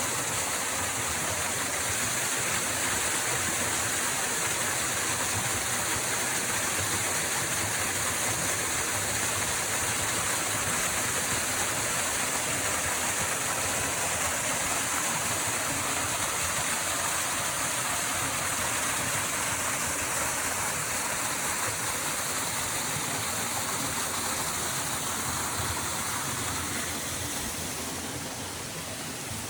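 Waterfall: a steady rush of falling water, easing slightly near the end.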